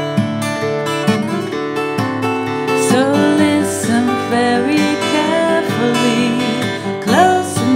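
An acoustic guitar playing a song, with a woman's singing voice coming in about three seconds in over the guitar.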